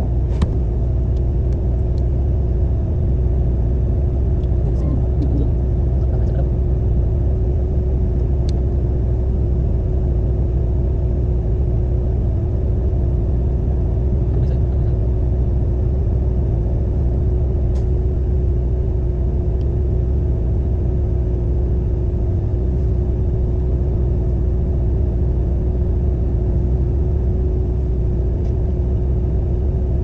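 Concrete mixer truck's diesel engine running steadily, a low, even rumble with a constant hum over it.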